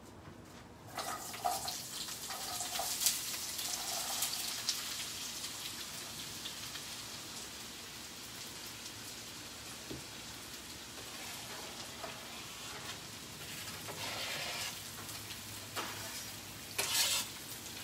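Diced sweet potato, red onion and peppers sizzling and crackling in a hot oiled pan as they are scraped in from a cutting board; the sizzle starts about a second in.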